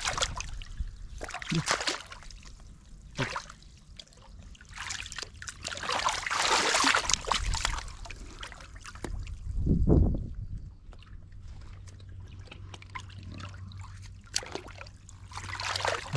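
Water sloshing and splashing in a shallow pool as hands grope for fish under a submerged rock, in irregular bursts with a longer, louder stretch of splashing about six seconds in. A short low thump comes about ten seconds in.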